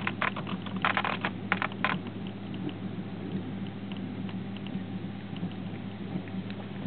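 Steady low electrical hum from an onboard camera rig on a grounded glider, with crackly bursts over the first two seconds, then only faint scattered ticks.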